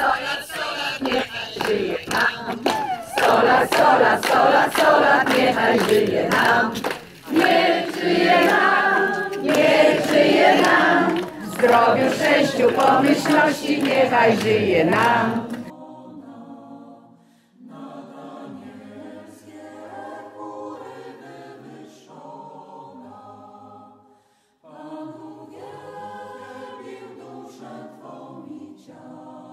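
A crowd of many voices singing together, loud and dense. About fifteen seconds in it cuts to a quieter choir singing slow phrases, with short breaks between them.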